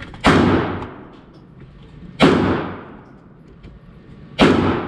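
Three gunshots about two seconds apart, each a sharp crack trailing off in a long echo.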